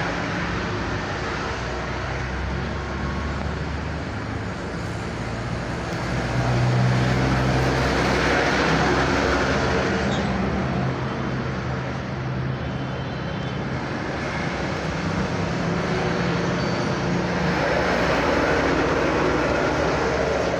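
Steady background road traffic, with vehicle engines swelling and fading as they pass, about six seconds in and again near the end.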